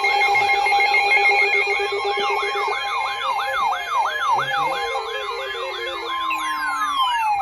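Electronic sirens layered together: a fast yelp repeating about three times a second over a steady alarm tone, with sirens gliding down in pitch through the second half.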